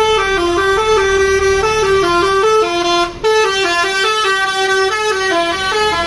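Tour bus telolet horn playing a quick melody, the notes stepping up and down in pitch, with a short break about three seconds in.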